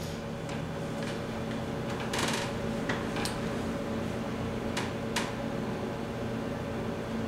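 Steady machine hum with a few soft rustles and light clicks from hands working on a patient's back on a treatment table: a rustle about two seconds in, then sharp clicks around three and five seconds.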